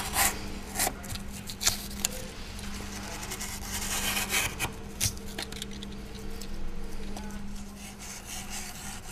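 Utility knife cutting and scraping through a block of honeycomb desiccant rotor media, in irregular rasping strokes with a few sharp snaps, over a steady low hum.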